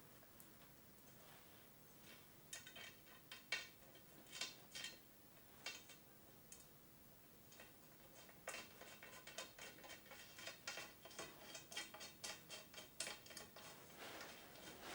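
Faint metallic clicking and ticking of small screws and washers being fitted and turned into the side of a display-case bar. A few scattered clicks come first, then a quick run of several ticks a second in the second half.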